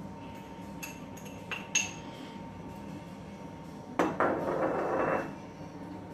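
A metal spoon clinking a few times against a glass jar and a cast-iron pot as brown sugar is spooned in. About four seconds in, a sharp knock is followed by about a second of louder rustling noise.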